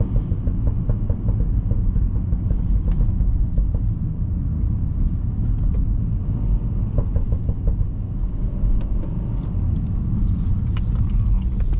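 BMW F30 with a VRSF downpipe and M Sport muffler driving, its engine and exhaust giving a steady low rumble.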